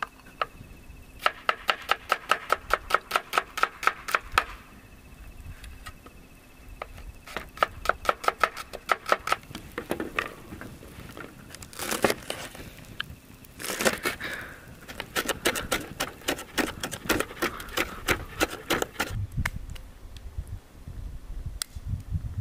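Roasted spices and garlic being pounded by hand in a mortar: quick runs of sharp strikes, about six a second, each with a slight ring, broken by short pauses and a scrape or two.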